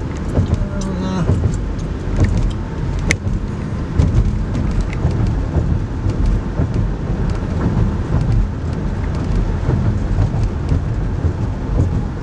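Road noise heard inside a moving car: a steady low rumble of tyres on a concrete bridge deck, with frequent small knocks and rattles through it.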